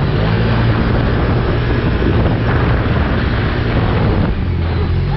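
Can-Am side-by-side UTV engine running hard at speed, with heavy wind noise on the microphone.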